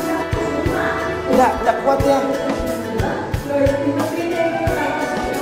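Background music with a steady beat and a singing voice.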